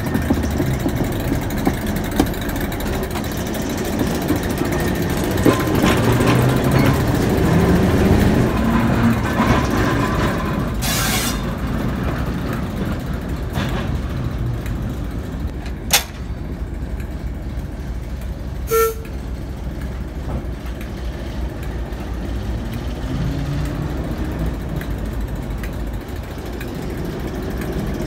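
Class 08 diesel shunter 08911's six-cylinder English Electric engine running, revving up between about six and ten seconds in and again around 23 seconds as the locomotive moves. A short hiss about 11 seconds in, a sharp click around 16 seconds and a brief toot near 19 seconds.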